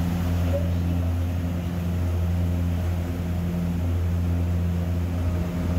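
Sightseeing boat's engine running steadily, a low drone with a few steady hum tones over it, along with an even hiss of water and wind.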